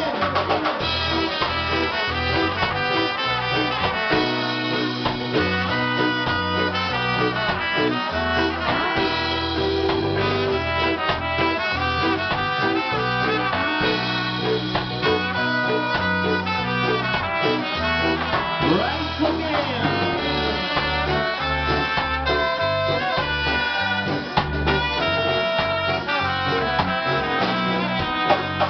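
Live reggae band playing, with trombone and trumpet carrying the lead over keyboard, electric guitar and drums.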